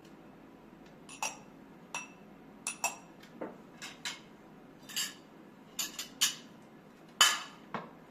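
Dishes and utensils clinking and knocking: about a dozen irregular sharp clinks, some with a brief high ring, the loudest about seven seconds in.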